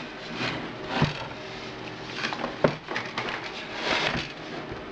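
Cables and plugs being handled and pushed into the connectors on the back of an electronics unit: a rustle of handling with several sharp clicks and knocks, the clearest about a second in and again midway.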